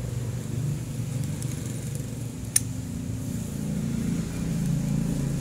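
Steady low rumble of a vehicle engine in the background, with one sharp metallic click about two and a half seconds in as a 12 mm socket is pressed down on a motorcycle cylinder head's valve spring to seat the valve cotters.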